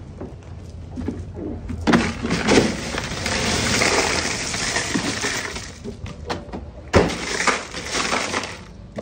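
Ice cubes poured out of a tipped plastic cooler into another cooler over plucked chicken carcasses: a long rattling rush of about four seconds. A sharp knock about seven seconds in, then a shorter burst of ice shifting as it is spread over the birds.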